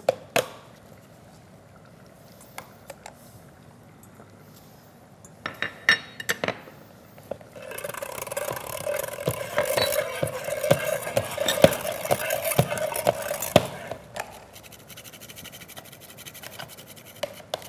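Kitchen handling at a glass mixing bowl: a few clinks about five to seven seconds in, then about six seconds of steady scraping and rubbing with scattered clicks, then quieter.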